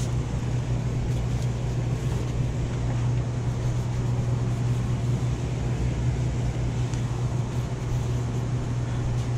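Steady low machine hum, unchanging in pitch and level, with a few faint light ticks over it.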